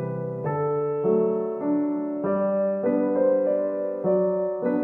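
Background piano music, with chords moving to new notes about every half second.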